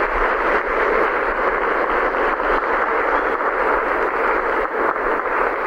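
A roomful of people applauding, steady clapping that holds at an even level throughout.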